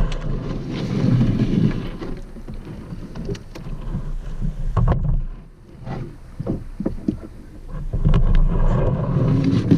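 Paddling a small boat on a lake: paddle strokes through the water with a few short sharp knocks and drips, over a low rumble of wind on the microphone that swells and fades.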